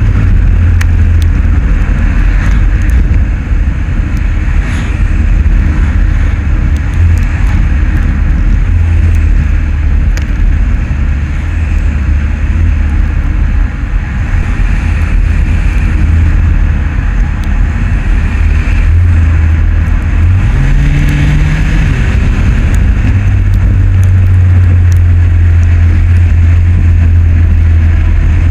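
Road driving noise picked up by a camera mounted low outside a moving vehicle: a loud, steady low rumble of wind and tyres on asphalt. About twenty seconds in, a short tone rises in pitch over the rumble.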